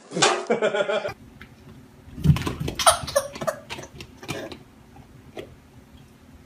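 A baby laughing and squealing in short bursts, a couple of seconds in. It follows a brief louder sound that cuts off abruptly about a second in.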